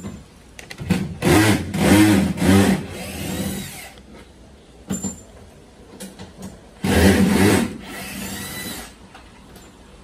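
Top-loading washing machine's motor whirring in two spells, at about one to three seconds and again near seven seconds, its pitch rising and falling about twice a second as the wash action swings back and forth.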